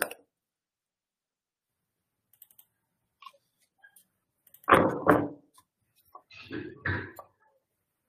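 A few faint clicks, then thumps and rustles from objects being handled close to a video-call microphone: one loud burst about two-thirds of the way in and two more shortly after.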